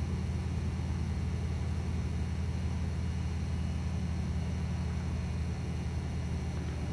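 Twin radial engines of a Lockheed Lodestar running steadily as the plane rolls along the runway: an even, low drone.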